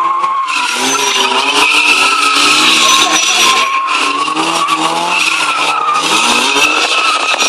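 Tyres skidding and squealing in a steady hiss as a stunt motorbike and a drifting Mazda MX-5 spin close together, with engines revving up and down underneath.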